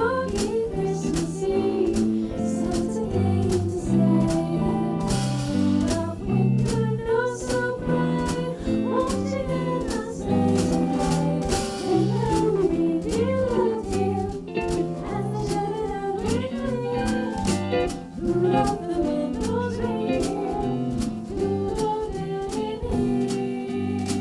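Jazz combo playing an instrumental passage: electric guitar melody over a stepping bass guitar line and drums.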